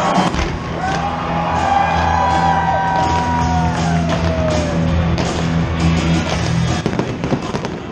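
Music with a steady low beat plays over fireworks popping and banging, with a few slow falling tones in the middle.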